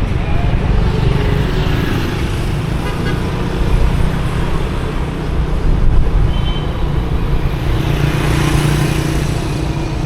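Motorbike ride through street traffic: wind buffeting the microphone over the running engine, with a short vehicle horn toot.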